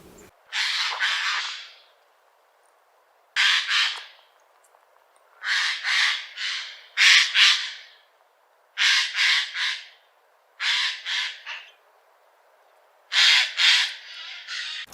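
Eurasian jay giving harsh screeching calls in short clusters of two or three, about seven clusters with brief silent pauses between.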